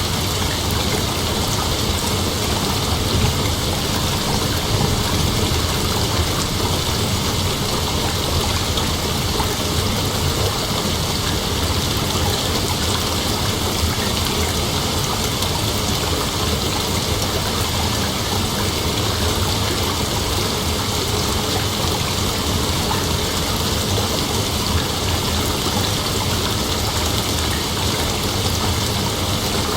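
Steady rain falling, an even rushing hiss that holds unchanged throughout, with no thunder rolling in.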